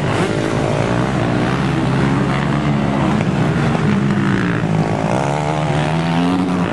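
Several motocross bikes' engines racing at once. They rise and fall in pitch as the riders work the throttle over the jumps, with one engine rising to a high pitch near the end.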